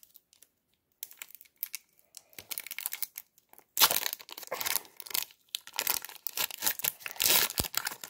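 Foil wrapper of a Pokémon trading card booster pack crinkling and tearing as it is handled and opened: light scattered crackles at first, then dense, louder crinkling from about four seconds in.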